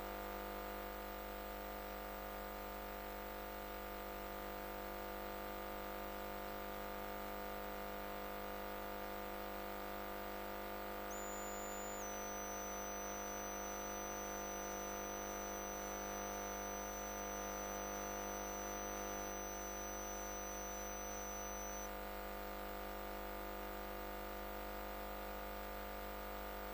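Background music: a steady sustained drone of many held tones that does not change. A faint thin high whine comes in about eleven seconds in and stops a little after twenty seconds.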